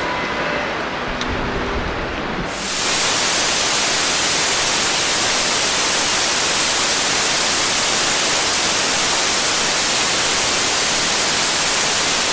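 Loud, steady static hiss like white noise, filling the whole sound evenly; it fades in about two and a half seconds in, after a short stretch of faint outdoor background.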